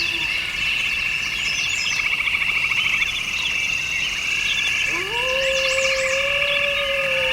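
Frogs and insects trilling steadily in a dense chorus, with birds chirping over it. About five seconds in, a low smooth whistle rises and then holds.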